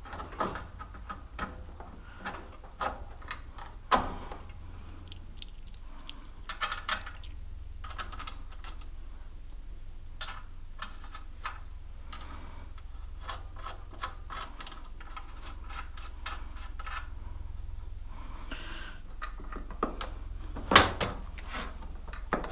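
Scattered metallic clicks and clanks of tools and small parts being handled while working on a monkey bike's rear wheel and chain, with one sharper clank near the end. A low steady hum runs underneath.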